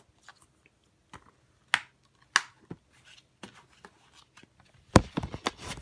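Plastic Blu-ray case and paper insert being handled: scattered light clicks and rustles, then a louder run of plastic clicks and knocks near the end.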